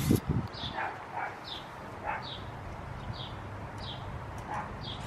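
Faint animal calls repeating about once a second, each a short falling chirp.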